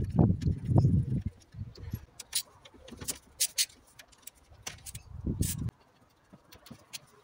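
Small metal engine parts handled and clinking: dull knocks at first, then a scatter of sharp metallic clicks that stop a little before the end.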